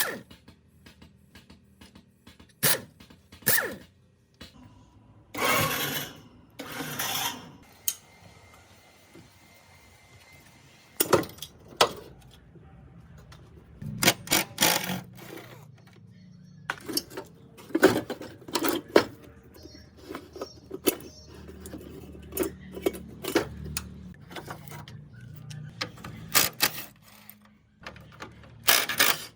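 Irregular sharp clicks and knocks of hand work, with two short hissing bursts about six seconds in and a faint low hum through the middle.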